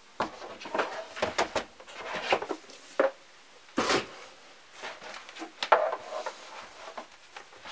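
Handling noise of a leather-covered keyboard folio case being lifted out of its cardboard presentation box and set down on a table: irregular scrapes, rubs and soft knocks, the sharpest about three and four seconds in.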